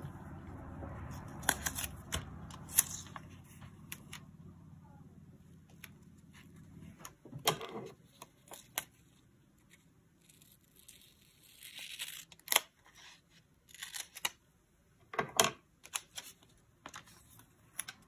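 Stickers being peeled from a sticker sheet and paper planner pages handled: scattered sharp clicks and crinkles, with a longer peeling rustle about two-thirds of the way through. A low steady hum runs underneath and stops about seven seconds in.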